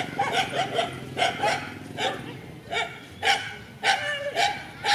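Dogs scuffling and barking, about a dozen short barks in quick, uneven succession.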